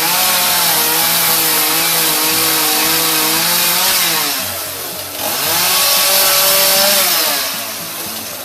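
Homelite two-stroke gas chainsaw with a 16-inch bar, revved to full speed twice with a brief drop in revs between, cutting through the base of a Christmas tree trunk.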